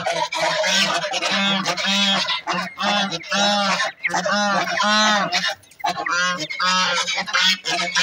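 Domestic geese honking in a steady run of repeated calls, two to three a second, with one short break a little past the middle.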